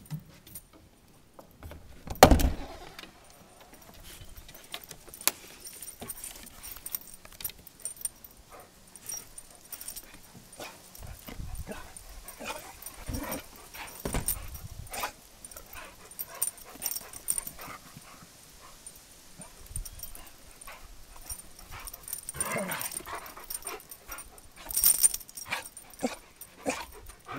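Two excited dogs greeting up close, with short whines and yips and a lot of jingling and scuffling. One loud thump comes about two seconds in.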